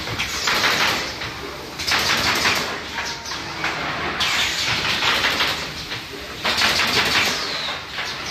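Pneumatic automatic canvas stretching machine at work: repeated bursts of hissing air and rapid clattering, each about one to two seconds long, with quieter running noise between them.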